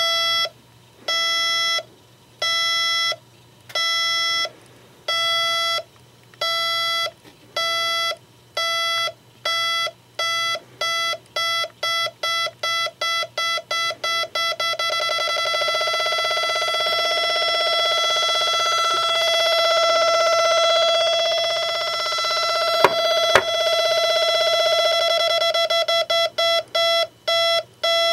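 A homemade beeper built from two NE555 timer chips, buzzing a fixed square-wave tone through a small speaker. The beeps start at about one a second and speed up until they run together into one continuous tone. They then break back into rapid beeping near the end. Two sharp clicks come during the continuous tone.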